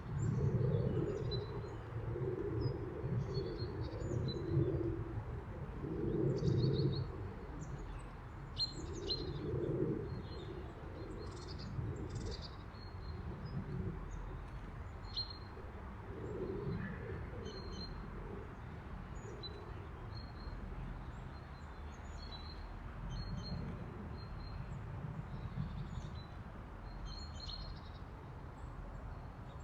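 Tits chirping in many short high calls, with a pigeon cooing low in phrases, most strongly in the first several seconds and again now and then later.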